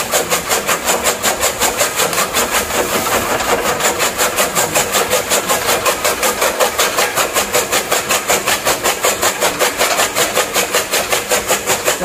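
Electric chaff cutter running while green grass and straw are fed into it by hand, its blades chopping the fodder in a fast, even rhythm of strokes.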